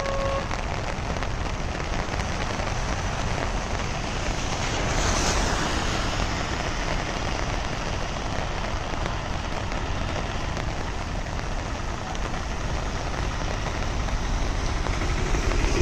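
Heavy rain falling steadily: a dense, even hiss with a low rumble underneath, swelling slightly about five seconds in.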